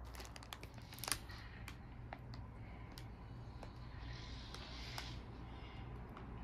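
Handling noise: a string of light clicks, the loudest about a second in, then a soft rustle around four seconds in, over a faint steady low hum.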